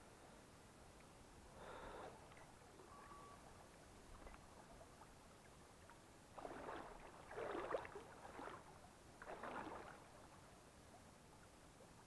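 Water sloshing and splashing as someone wades through a shallow stream: one short slosh about two seconds in, then three louder sloshes in quick succession in the second half, over the faint steady rush of the stream.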